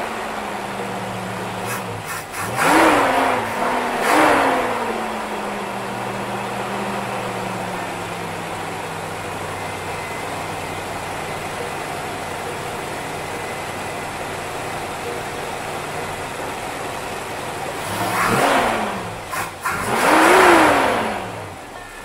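1964 Rambler American's V8 engine, fitted with an Edelbrock four-barrel carburetor, idling and blipped by hand at the throttle linkage: two quick revs a few seconds in, a long stretch of idle whose pitch slowly drops, then two more revs near the end.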